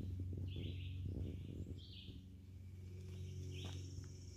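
Short bird chirps repeating every second or so over a steady low hum.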